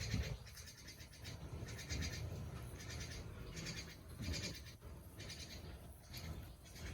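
Baby monkey calling in a series of short, high, bleat-like cries.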